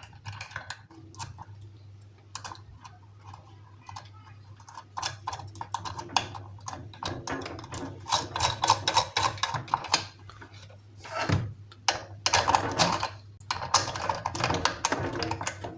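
Rapid small metal clicks and rattles as a ceiling fan's clamp is fitted and tightened by hand. The clicks are sparse at first and come in dense runs from about a third of the way in, over a steady low hum.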